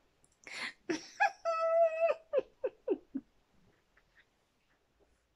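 A woman's wordless teasing vocalising: a breath, then a high hum held for about half a second, then four short falling chuckles.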